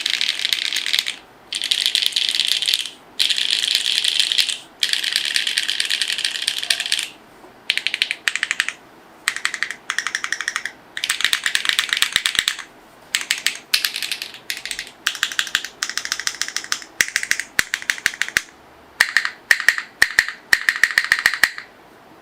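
Typing on a Singa Rubrehaku Cream mechanical keyboard with hand-lubed HMX Hazelnut switches and GMK CYL keycaps. Keystrokes come in quick runs lasting about a second each, with short pauses between. Toward the end the runs are shorter and the single keystrokes stand apart more clearly.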